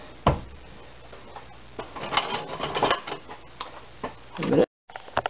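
Kitchen handling noise: a sharp knock, then about a second of clicking and rattling, a few scattered clicks, and a short swell that cuts off abruptly near the end.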